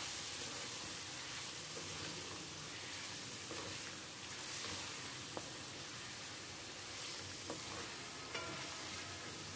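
Chicken in a spice masala sizzling steadily in hot oil in a kadai as it is stirred with a spatula, the masala being fried (bhuna) in the oil. A few faint clicks of the spatula come through.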